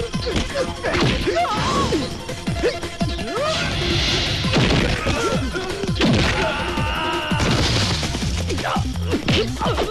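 Film soundtrack of repeated crashes and hits, many with quick falling swoops, over background music.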